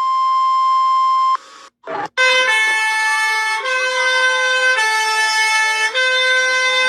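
A steady single-pitch alert beep cuts off about a second and a half in; after a short break an ambulance-style siren used as an emergency alert starts, a two-tone hi-lo pattern switching about once a second with a slower wailing tone gliding up and down beneath it.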